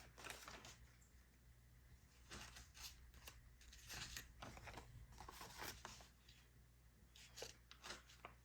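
Faint, scattered rustles and flicks of paper banknotes being handled and counted.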